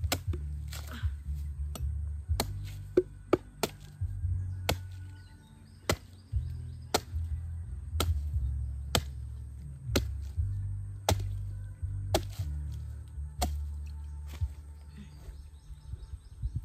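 Steady chopping, sharp blade strokes about once a second, over background music with a deep bass line.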